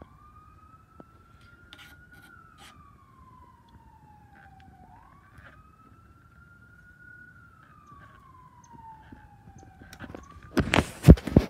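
Faint emergency-vehicle siren wailing, its pitch climbing and falling slowly about every five seconds. Near the end, a short burst of loud rubbing and knocks, the loudest sound.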